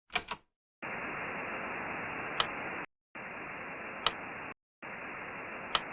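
Two quick clicks, then three bursts of steady hiss like radio static, each one and a half to two seconds long with a short gap between them and a single sharp click inside each.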